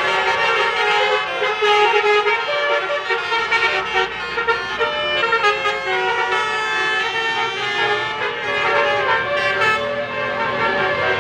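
A bus's multi-trumpet 'telolet basuri' horn playing a tune, its notes stepping up and down without a break.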